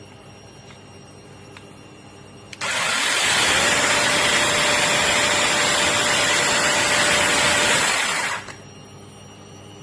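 Battery-powered brushless 8-inch mini chainsaw running at full speed for about six seconds, starting and stopping abruptly, with a steady whine over the chain noise.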